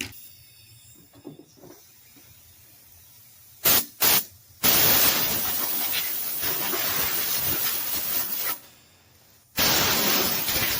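Small air blower blasting dirt off a lawn mower deck: two short puffs, then a long steady rush of air. The air cuts off for about a second and then starts again.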